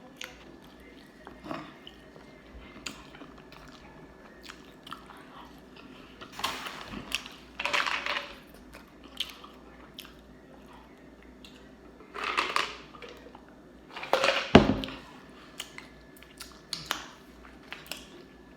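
A person chewing and biting food close to the microphone: steady small mouth clicks, with four louder bites or chewing bursts, the loudest near the end.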